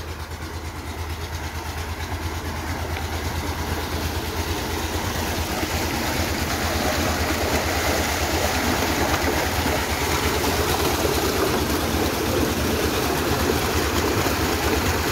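A tubewell's diesel pump engine running steadily with a low, even throb, under water gushing from the outlet pipe and splashing into a concrete tank. The gushing grows louder over the first several seconds, then holds steady.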